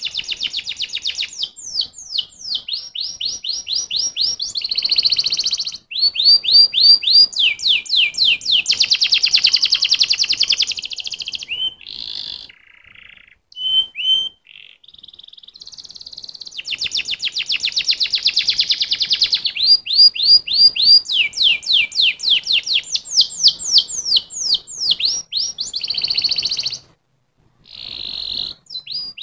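Domestic canary singing: long runs of very fast trills and rapidly repeated falling notes, broken by a few short pauses, the longest about halfway through.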